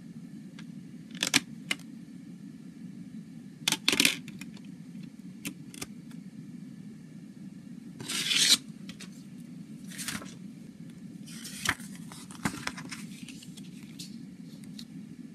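A plastic CD jewel case being handled and its paper booklet pulled out and leafed through: a few sharp plastic clicks, a scraping slide, then paper rustling as the pages turn, over a steady low hum.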